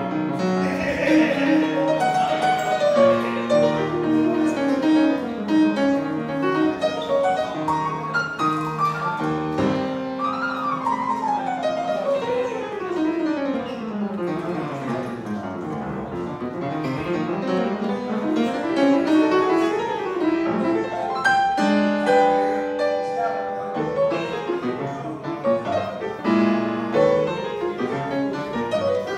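Solo grand piano being played: busy phrases, then from about ten seconds in a long run of notes sweeping down the keyboard, turning and climbing back up, followed by repeated struck chords.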